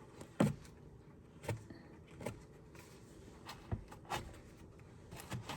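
About six light, separate knocks and clicks, spread a second or so apart, from wooden Layens hive frames and hive parts being handled and set in place.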